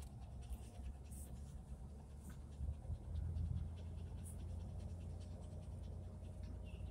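Steady low rumble of a car driving slowly on a paved lane, heard from inside the cabin, with faint scattered ticks.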